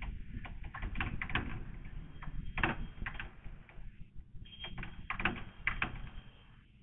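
Board duster rubbing across a chalkboard, wiping it clean in quick, irregular scrubbing strokes, a few of them louder than the rest.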